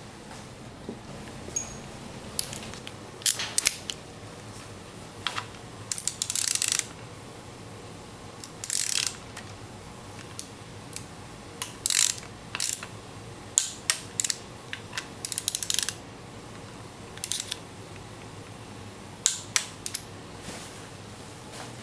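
Hand ratchet wrench clicking in short spells, with scattered metallic clicks and clinks of tools and parts, while a part is taken off the engine.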